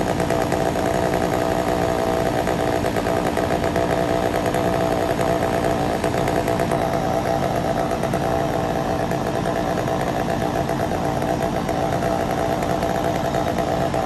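An engine running steadily at one constant speed, with an even, unchanging hum.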